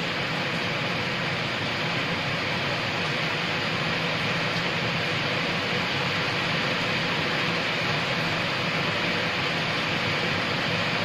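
Steady rain falling on brick paving and leaves, an even hiss that holds at the same level throughout.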